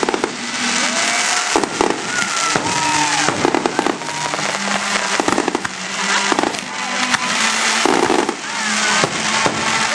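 Aerial fireworks shells launching and bursting in quick succession: a dense, continuous crackle of many sharp reports, with several short whistles gliding up and down in pitch.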